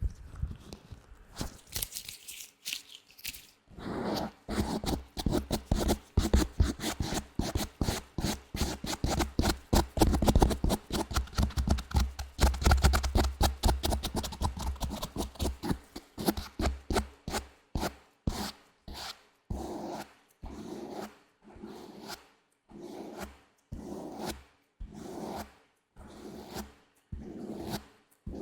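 Latex gloves rubbed close to the microphone: a run of quick, dense rubbing strokes, then, from about halfway, slower separate strokes about once a second.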